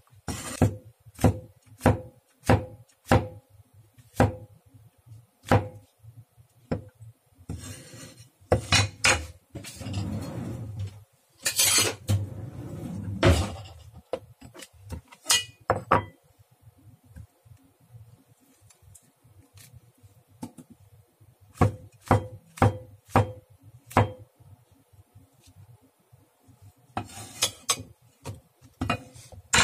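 Chinese cleaver chopping bell pepper and mushrooms on an end-grain wooden board: sharp knocks in irregular bursts, with a few seconds of rougher scraping and clatter about ten seconds in.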